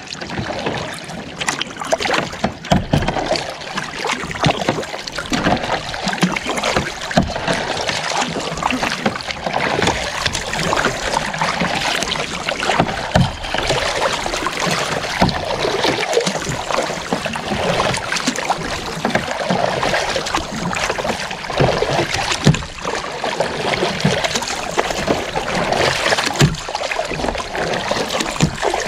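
Double-bladed kayak paddle strokes dipping and splashing into the sea, with water washing along the kayak's hull as it moves.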